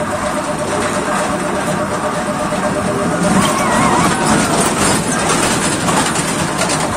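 Small children's roller-coaster train rolling along its steel track, a steady rumbling clatter that grows loudest about halfway through as the cars pass close by.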